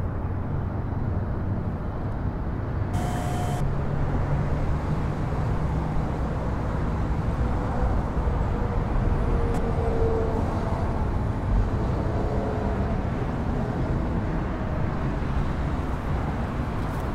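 Steady low rumbling background noise, with a couple of faint brief tones about three seconds in and again near ten seconds in.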